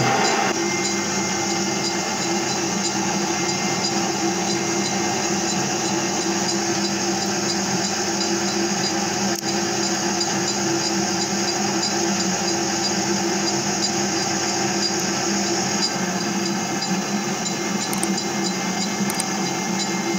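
MetalMaster MML 2870 MV benchtop lathe-mill running at steady speed while turning a steel bar. The motor and gear drive give a steady whine, and the cutter taking a pass adds a hiss.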